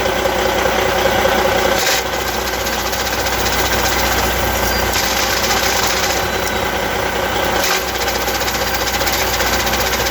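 Heavy truck's diesel engine idling with a fast, continuous rattle from an Eaton Easy Pedal Advantage clutch: an abnormal clutch sound. The sound changes briefly about two seconds in and again near the end.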